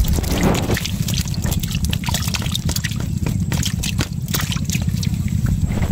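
Water trickling and dripping out of a bamboo shrimp trap as its catch is tipped into a wicker basket, with many small sharp clicks and splashes throughout over a steady low rumble.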